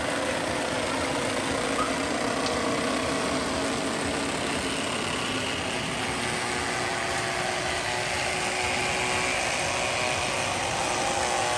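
Steady rush of stream water flowing through and turning a row of large bamboo water wheels.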